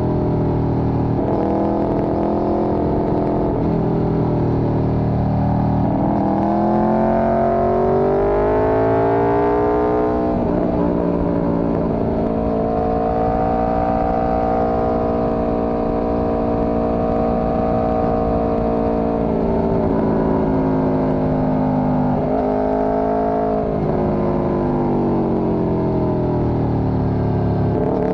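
Four-cylinder motorcycle engine heard from the rider's seat, accelerating with its pitch climbing, dropping at a gear change about ten seconds in, then holding a steady cruise before easing off and pulling again near the end, with wind rush throughout.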